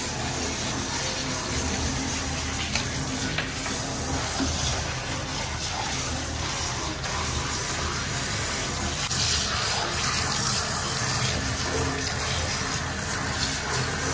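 Handheld shower head spraying a steady stream of water onto a plastic toy car in a bathtub.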